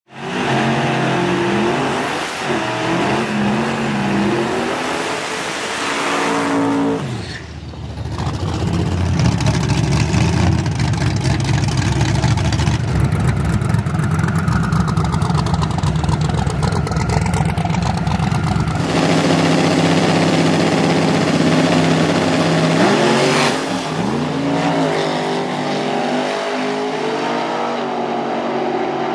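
Drag-race car engines idling and revving, with pitch swinging up and down; from about seven seconds in, a long, louder stretch of engine noise lasts some twelve seconds before the revving returns.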